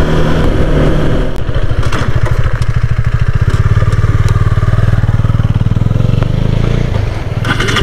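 Motorcycle engine running under way with a steady, even beat, its pitch rising a little about six seconds in and easing off near the end.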